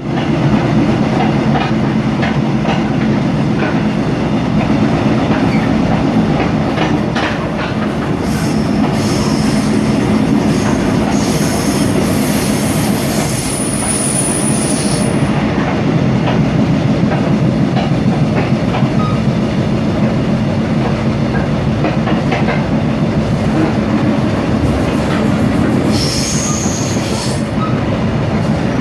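Passenger train running along the track: a steady low rumble with the clack of wheels over rail joints. High-pitched wheel squeals come and go from about eight to fifteen seconds in, and again shortly before the end.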